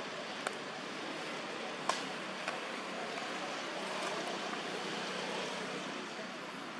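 Steady outdoor background noise, an even hiss, broken by three sharp clicks in the first few seconds, the loudest about two seconds in.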